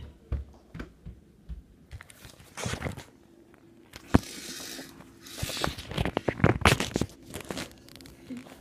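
Handling noise from a phone's microphone as it is moved about and set down: rustling and scraping with scattered knocks. The sharpest knock comes about four seconds in, and a cluster of knocks and rubbing follows between about five and seven seconds.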